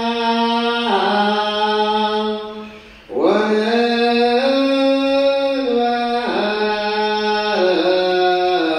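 Ethiopian Orthodox liturgical chant (zema) of the Ge'ez Misbak psalm verse: a voice sings long held notes that glide slowly from pitch to pitch in a melismatic line. It breaks off for a breath about three seconds in and again at the end.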